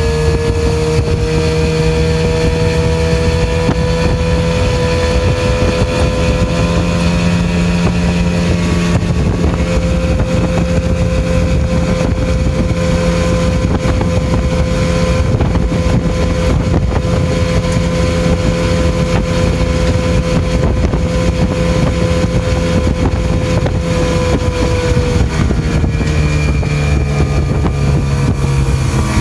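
Older Mercury outboard motor running at speed with the boat on plane, its switch box newly replaced. The engine pitch climbs a little at first, holds steady, then falls near the end as the throttle comes back. Wind rushes over the microphone.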